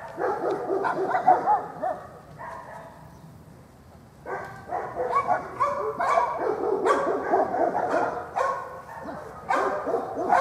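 Labrador retriever barking and whining in rapid runs, one of about two seconds at the start and a longer one from about four seconds in, with a quieter pause between.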